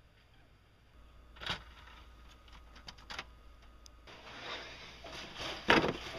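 A refrigerator door opening with a click, then bottles and jars on the door shelves clinking and knocking as they are handled, the loudest knock near the end.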